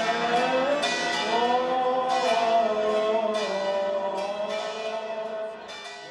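Church bells ringing in an irregular peal, with a sung melodic line running over them; the sound fades out near the end.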